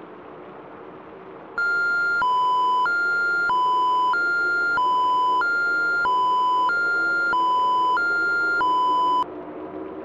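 Electronic hi-lo emergency alert tone: two beeping pitches alternate, high then low, about every two-thirds of a second. It starts about a second and a half in and stops just before the end, over a faint low drone.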